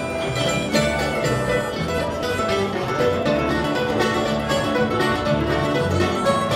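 A live band playing a song, with a plucked upright bass carrying the low notes under guitar.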